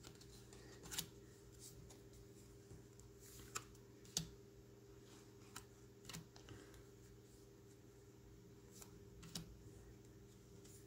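Baseball trading cards handled one at a time, faint scattered flicks and taps of card stock as they are slid off a stack and laid on a pile, over a low steady hum.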